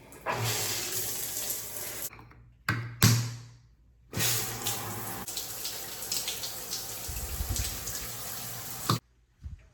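Water running from a shower valve fitted with a new Moen cartridge as the valve is opened and shut. The water runs for about two seconds and stops, there is a sharp knock about three seconds in, then it runs again for about five seconds and cuts off suddenly.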